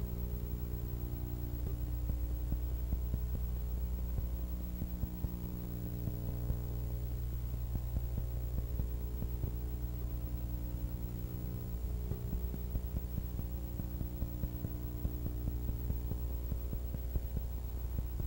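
Steady electrical mains hum, a low drone with a stack of overtones, with a faint crackle running through it and no other sound.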